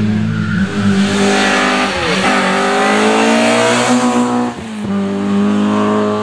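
Peugeot 106 rally car's engine at high revs as it passes close by on a closed stage. The engine note drops sharply and climbs again twice, about two seconds in and near five seconds, as it changes gear.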